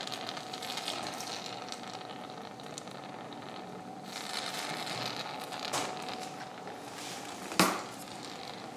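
Surgical suction tube aspirating blood and fluid from an open nasal wound, a steady sucking hiss with crackling, stronger about halfway through. Two sharp metal instrument clicks, the louder near the end.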